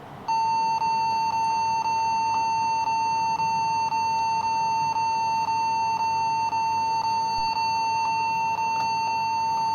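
Compaq laptop's internal speaker giving one continuous high-pitched beep after the Enter key is pressed, steady and unbroken. The fault is traced to the keyboard, whose connection is not making proper contact.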